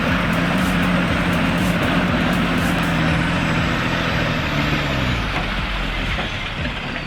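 Heavy diesel logging truck engine running hard under load, its pitch sliding lower about four to five seconds in.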